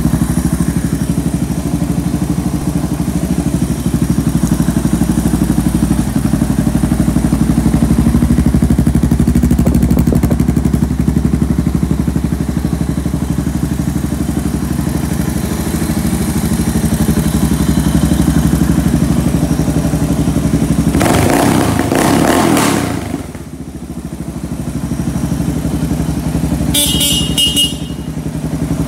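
2018 Suzuki DR650's air-cooled single-cylinder four-stroke engine idling steadily on a stand. Near the end, the bike's horn is sounded briefly.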